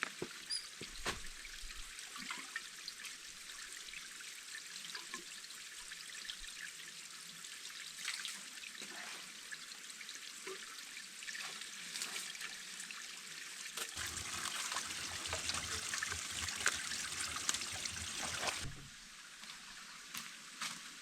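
Water trickling, with scattered small clicks; it grows louder about two-thirds of the way through, then stops abruptly near the end.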